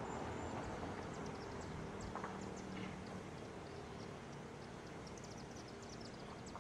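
Small birds chirping in quick, high notes over a faint low hum.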